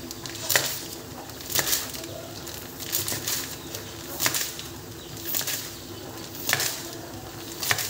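Knife cutting through a block of plastic-wrapped tempeh on a cutting board: about seven short, sharp cuts, roughly one a second, each ending in a light knock on the board.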